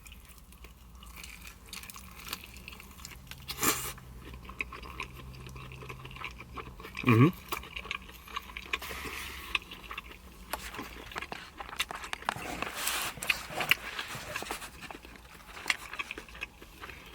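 Close-up sounds of a person biting and chewing a pan pizza: soft crunches and wet mouth clicks, with a brief voiced 'mm' about seven seconds in.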